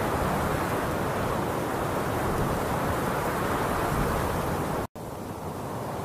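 Steady rushing noise laid under the picture. It cuts out abruptly for an instant a little before five seconds in, then comes back somewhat quieter.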